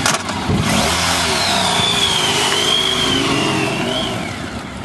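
Police motorcycle engines revving as the bikes pull away, with a high wavering whine above the engine noise. The engine sound drops off about four seconds in as a bike rides away.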